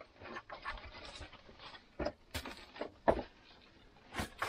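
Flat wall stones knocking and clacking together in a few sharp hits, the loudest a little past three seconds in, with scuffing and a sack rustling between them, as a dry-stone wall is taken apart by hand.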